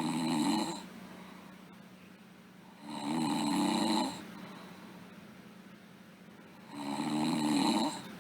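A sleeping girl snoring: three snores about four seconds apart, each about a second long, the first already under way as the clip begins. A faint steady hum runs underneath.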